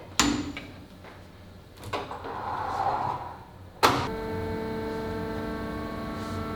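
Factory machinery: a sharp knock, some rattling, then a loud clunk about four seconds in, after which a machine runs with a steady multi-tone hum.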